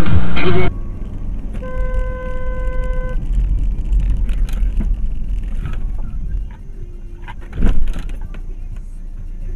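Dash-cam car audio: steady road and engine rumble, a car horn sounding for about a second and a half near the start, and a sudden loud thump about eight seconds in.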